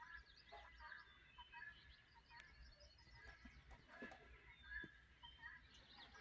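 Faint dawn chorus: many birds chirping and calling at once in short, overlapping notes, with distant fowl calling among them, which the listener takes for chickens.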